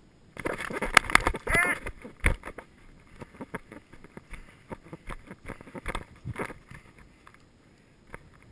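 Footsteps and gear rattling as a player runs over dry grass and sandy dirt: a loud flurry of knocks and scuffs in the first two seconds, with a brief squeak-like voice sound, then lighter, irregular steps and rustles that die away near the end.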